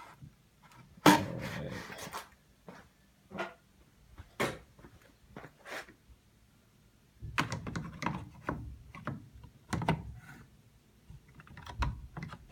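Plastic knocks and clunks from a front-load washing machine's detergent dispenser drawer being handled and fitted back into the machine. There is a louder scraping clunk about a second in, a few single knocks after it, and a busier run of knocks and rattles in the second half.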